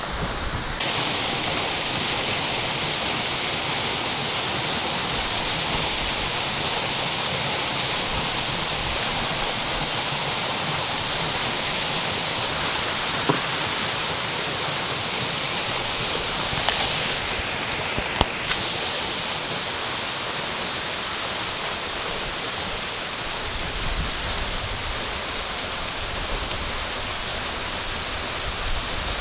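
Waterfall rushing steadily, with a few faint short ticks in the middle.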